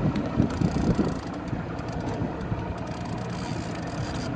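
Mercury outboard motor idling, a steady low rumble.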